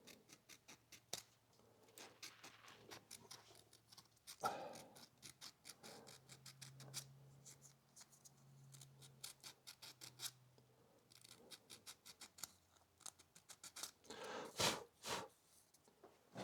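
Emery cloth rubbed back and forth over the metal contacts of a motorcycle starter solenoid to clean them, a quick run of faint scratchy strokes with a few louder rasps.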